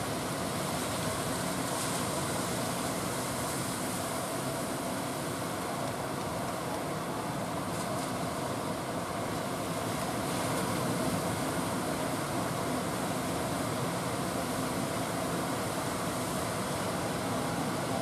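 Steady roar of heavy surf breaking and churning.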